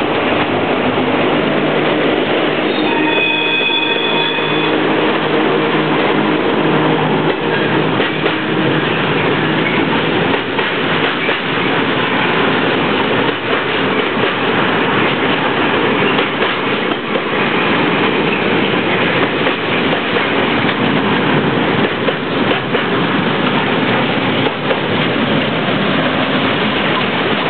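Freight train passing close by: a long string of box wagons and flat wagons loaded with rails rolls past with steady wheel rumble and clatter. A brief high ringing tone sounds about three seconds in.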